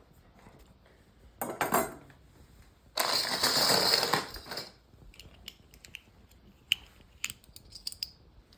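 Hands working at a book and its leather covering: a short scratchy rustle, then a louder, longer rubbing or scraping sound, followed by a few light clicks and taps of small hard objects being handled.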